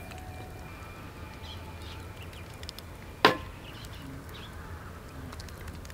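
Quiet outdoor background with faint bird chirps, broken by a single sharp knock a little past three seconds in.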